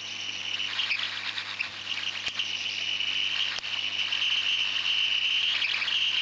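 Hot air rework station blowing onto a phone circuit board to melt the solder on a SIM card reader's pins: a steady high-pitched hiss, with a couple of faint clicks.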